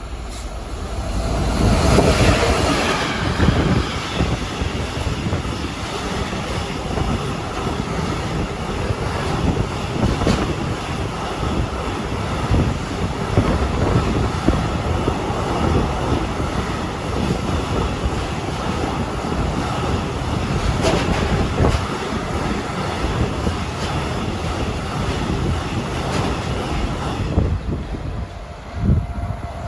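A train passing close by, its wheels clattering over the rail joints. It comes in loud about two seconds in, runs steadily for more than twenty seconds with scattered clicks, and dies away near the end.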